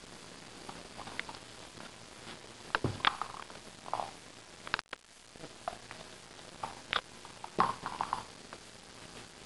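Scattered soft thumps and light clicks as a border terrier handles a red rubber Kong stuff-a-ball on carpeted stairs: the ball dropping onto the carpeted steps and her paws on the carpet. There is one low thump about three seconds in and a cluster of knocks about two-thirds of the way through.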